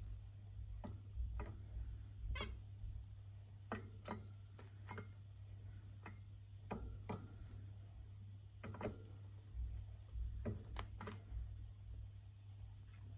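Zebra finches in a cage making short, sharp clicks and ticks, irregularly spaced at about one a second, over a steady low hum.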